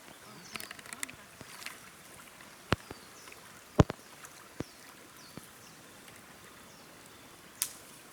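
A few separate sharp knocks or taps, the loudest about four seconds in, over a quiet outdoor background with faint high chirps.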